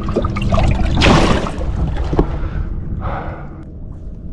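Water splashing as a bass is dropped into the boat's livewell: a sharp rush of splashing about a second in and a shorter, softer one about three seconds in, over low wind rumble on the microphone.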